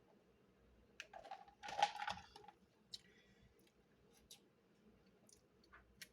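Faint clicks and a brief rustle of handling noise about a second in, followed by a few scattered soft clicks.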